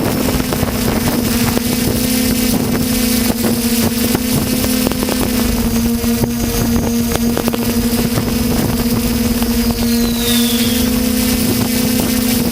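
Skyhero Little 6 hexacopter's six electric motors and propellers running with a steady low hum, heard from the GoPro mounted on it, with many short clicks and pops over it. A brief falling whistle comes about ten seconds in.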